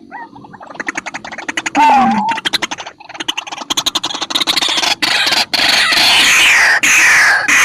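White-breasted waterhen (ruak-ruak) calling loudly: a fast rattling run of clicking notes that builds into harsh, repeated calls about once a second, each sliding down in pitch.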